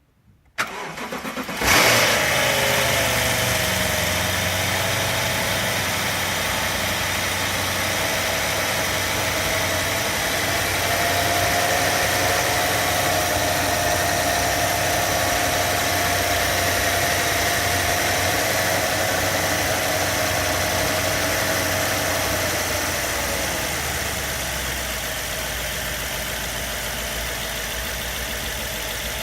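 BMW F10 550i twin-turbo V8 cold-started after sitting for a week or two: a short burst of cranking, the engine catches with a rev flare about two seconds in, then runs at a fast idle with an abnormal wavering whirring noise ('gyuru-gyuru') on top. The whirr fades out near the end as the idle settles.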